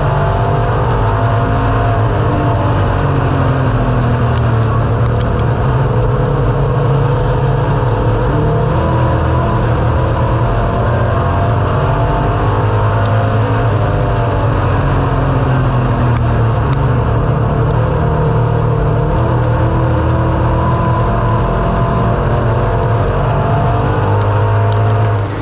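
Pure Stock dirt race car's engine running hard under racing load, heard from inside the cockpit, its pitch rising and falling again and again.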